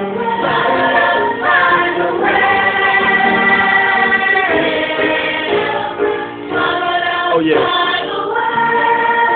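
A choir singing, the voices holding long notes together and moving to a new chord every second or two, with short breaks between phrases.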